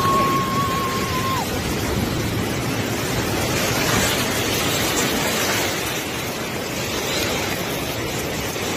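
Surge of muddy floodwater rushing and churning past, a loud steady roar of water. At the start a long, high, held cry or whistle breaks off after about a second and a half.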